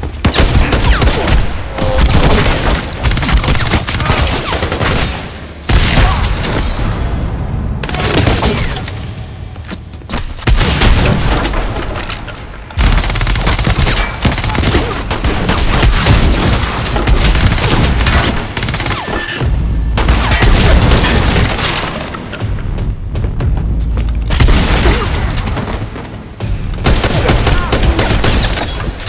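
A fast montage of designed action sound effects: dense runs of hits and impacts with heavy booms, alongside music, pausing briefly every few seconds between runs.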